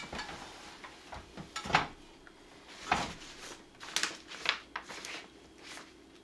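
Scattered knocks, clinks and rustling as a tangled bundle of electrical wires is handled and pulled up a wooden wall, with about half a dozen sharper knocks among the rustling.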